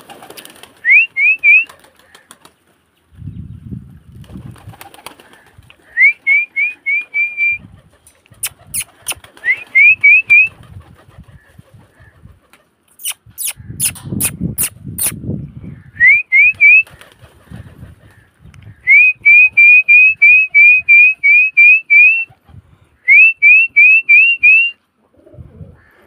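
Domestic pigeons flapping their wings as they take off and land, in two rough flurries with sharp wing claps. Loudest are repeated runs of quick, high rising chirps, several in a row and about four or five a second, coming back again and again.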